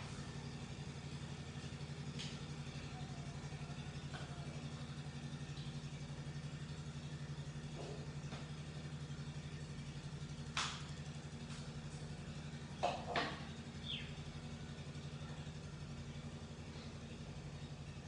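A steady low machine hum, with a few short knocks about ten seconds in and twice more close together a couple of seconds later.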